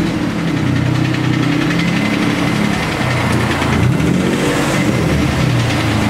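Infiniti G35's 3.5-litre V6 engine running steadily; this engine has a serious rod knock from a heavily damaged bottom end.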